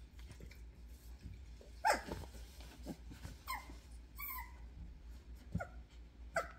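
Very young Doberman puppies, about two and a half weeks old, giving a handful of short, high cries that drop in pitch, about five in all, the loudest about two seconds in.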